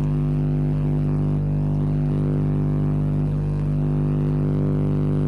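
Steady electrical buzz on the audio line: a low mains hum at one constant pitch with many overtones, unchanging in level.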